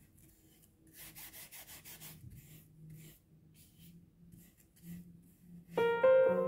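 Flat bristle brush scrubbing oil paint onto oil paper in short back-and-forth strokes, a quick run of about six strokes a second about a second in, then slower, fainter strokes. Piano music comes in near the end.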